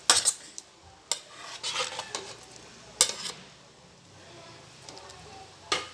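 A spoon stirring glutinous rice balls in coconut milk in a cooking pot, to keep the balls from sticking together. Several sharp knocks of the utensil against the pot, with scraping between them.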